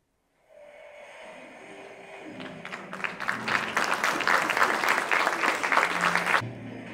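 Audience applauding, swelling over the first few seconds and cutting off abruptly near the end.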